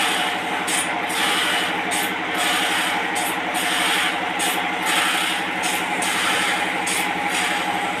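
Sawmill machinery running steadily: an engine drone with a fast pulsing beat, under a hiss that swells and fades every second or so.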